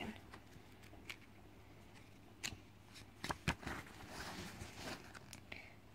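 Stiff card pages of a small paper pad being turned and handled, with a few soft clicks and rustles of the card.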